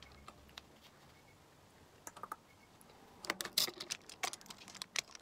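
Light clicks and taps from makeup brushes and an eyeshadow palette being handled, with a quick flurry of clicks about three to four seconds in.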